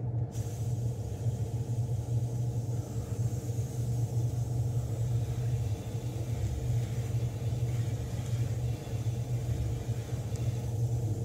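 Iwata airbrush spraying white paint through a stencil onto a crankbait blank: a steady hiss of air and paint that starts right away and stops shortly before the end, over a steady low hum.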